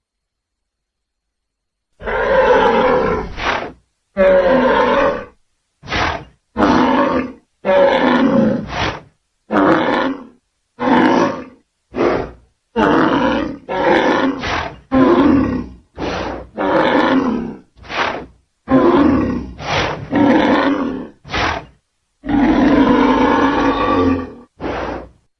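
A string of creature sound effects, about twenty roars and grunts built from mid-sized ceratopsian dinosaur calls. They begin about two seconds in and run from short grunts to roars of about two seconds, each cut off sharply, with brief silences between them.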